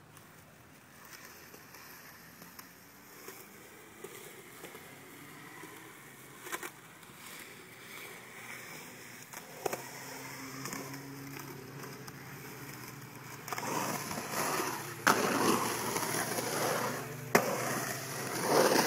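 Skateboard wheels rolling on concrete, faint at first with a few light clicks, then louder over the last five seconds. Sharp clacks of the board on the concrete cut through, two loud ones near the end.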